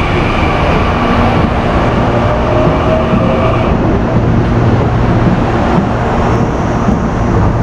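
CPTM Série 8000 CAF electric multiple unit moving past along the platform: steady rail running noise under a whine of several held tones, the highest of which stops about four seconds in.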